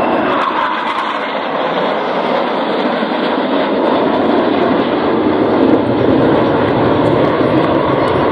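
Jet noise from a six-ship formation of F-5E Tiger II fighters, each with two J85 turbojets, flying past: a steady, loud rush that deepens about halfway through as the formation draws away.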